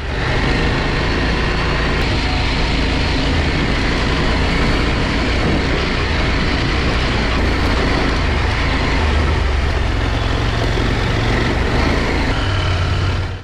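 KTM adventure motorcycle riding steadily along a wet gravel track: a continuous low engine hum under heavy wind and tyre noise on the onboard microphone.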